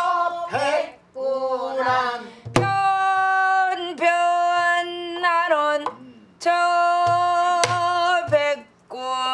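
A woman singing a pansori danga in long held, wavering notes that bend at the ends of phrases, with short breaks between phrases. A stick strikes a buk barrel drum a couple of times to mark the beat.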